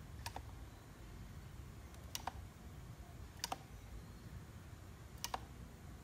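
Sharp plastic clicks from a pistol-grip RC transmitter's controls being worked by hand: four quick double clicks, spaced about one and a half to two seconds apart, over a low steady hum.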